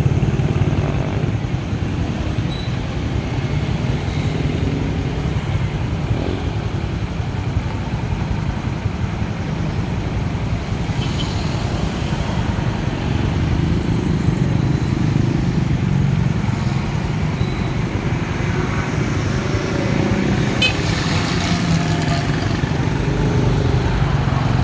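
Road traffic going by: motorcycles and small vehicles running past close by, a steady engine rumble.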